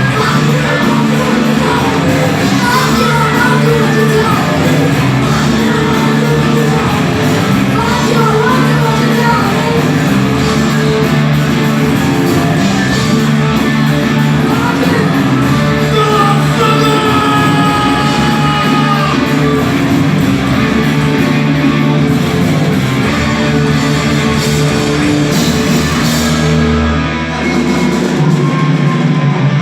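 Live rock band playing loud, with distorted electric guitars, bass and drums under sung and shouted vocals, heard through the room's reverberation. The band's sound briefly thins out near the end before coming back in.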